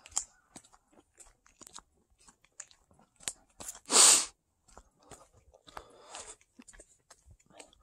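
Footsteps crunching on a gravel trail, irregular short crunches, with one much louder, brief noisy burst about halfway through.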